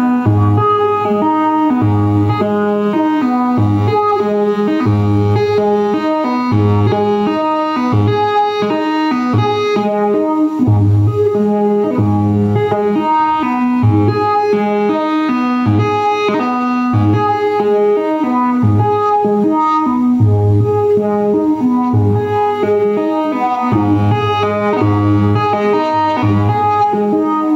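Live electronic music played on synthesizers, including a modular synthesizer: a sequenced pattern of short pitched notes over a low bass note that repeats at a slow, even pulse.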